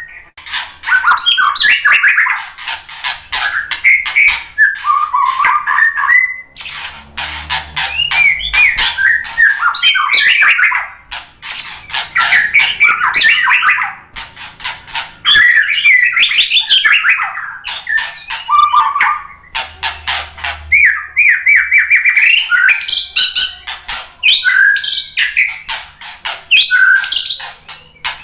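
White-rumped shama singing loudly: a long, varied run of whistled phrases and fast clicking, chattering notes, broken by a few short pauses.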